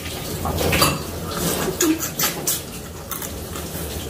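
Chopsticks clicking and clinking against ceramic bowls and plates during a meal: a scattered run of short, sharp clicks.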